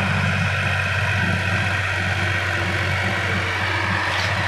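Sonalika DI 50 Rx tractor's diesel engine running at a steady speed as it pulls a tillage implement through a flooded paddy field.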